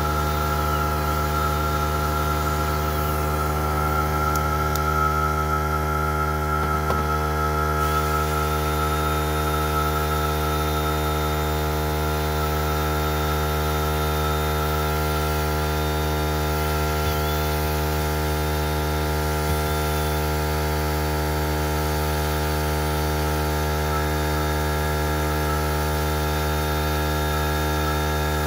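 Electric drill with a mixing paddle running at a steady speed, a constant hum, as it mixes foam into cement slurry for aircrete in a metal bucket.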